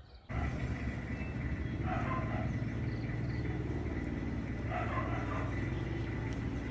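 Low, steady rumble of a vehicle engine running close by on the street, with two brief faint sounds over it about two and five seconds in.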